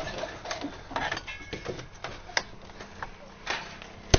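Crowbars working at a door: scattered, irregular knocks and clicks, with the sharpest knock near the end.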